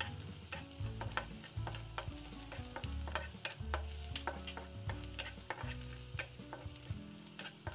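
Wooden spatula stirring and scraping chopped onion and garlic around a nonstick wok, with frequent irregular clicks of the spatula against the pan over a light sizzle of the oil.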